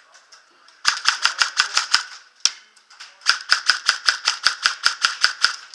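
Airsoft gun firing a quick string of sharp cracking shots, about seven a second, then a single shot, then a longer string of about fifteen shots.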